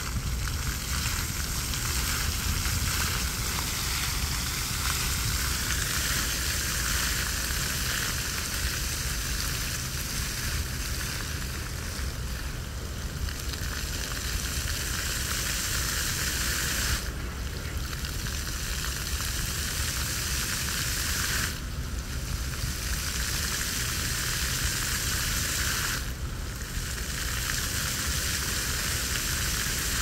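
Park fountain's jets spraying and splashing into the pool: a steady hiss of falling water with a low rumble underneath. The hiss briefly thins three times in the second half.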